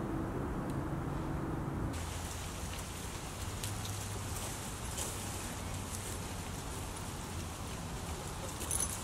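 Dry autumn leaves rustling in the treetops, an even hiss full of small crisp ticks. A low steady hum sounds under it for about the first two seconds, then stops.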